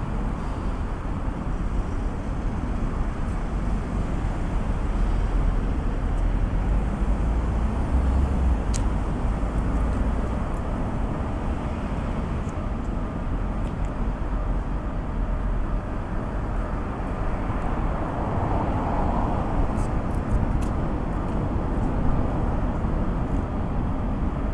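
Urban road traffic noise: a steady low rumble of vehicles with no level-crossing bell sounding.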